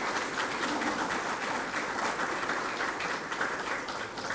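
Audience applauding, a dense, even patter of many hands clapping.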